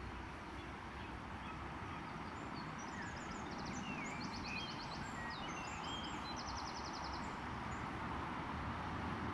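A songbird sings a varied phrase of high chirps, quick glides and fast trills for several seconds in the middle, over a steady low outdoor rumble.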